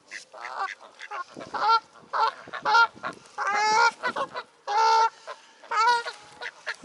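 Geese honking repeatedly: a string of loud, short, nasal calls, several of them close together.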